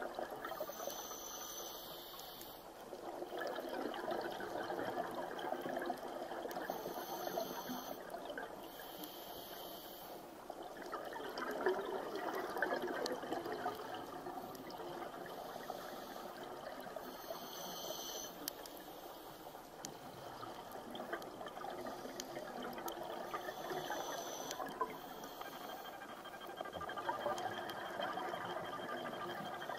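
Muffled underwater rush of a scuba diver's exhaled bubbles and water noise, swelling and fading every several seconds with short hisses in between.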